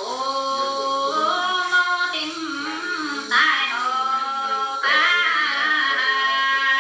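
A woman singing a folk song unaccompanied, in long held notes that slide and waver between pitches. New phrases begin about three seconds in and again near five seconds.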